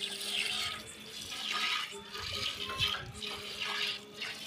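Milk squirting by hand from a cow's teats into a partly filled steel pail: rhythmic hissing squirts, about one every half to three-quarters of a second.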